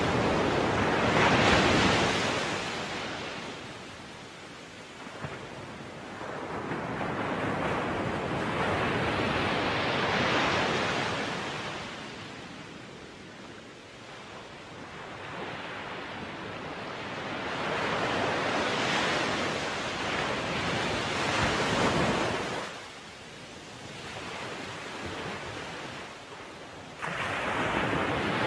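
Heavy sea surf surging and breaking in long swells, each building and fading over several seconds, about every eight to ten seconds, with wind across it. The level jumps up suddenly near the end.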